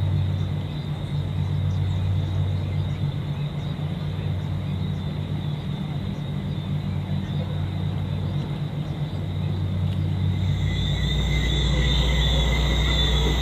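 Steady low engine drone, dropping lower about ten seconds in, with thin high whining tones that grow louder near the end.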